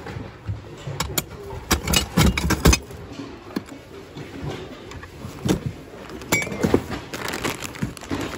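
Hands rummaging through a bin of mixed secondhand goods: Christmas ball ornaments and ceramic pieces clinking and knocking together, with rustling of cloth and cardboard. A run of sharp clinks comes about two seconds in and again near the end.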